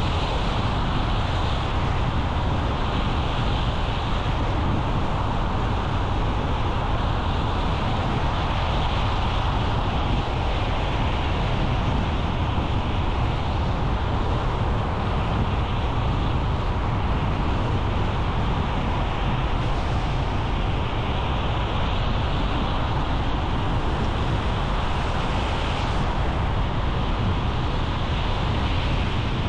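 Steady road and wind noise from a car being driven, with a constant low rumble.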